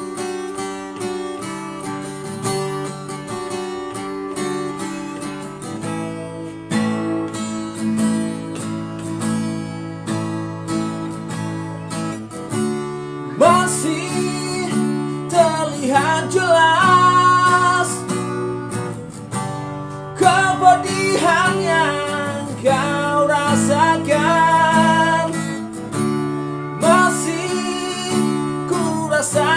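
Background music: strummed acoustic guitar chords, joined about halfway through by a wavering melody line.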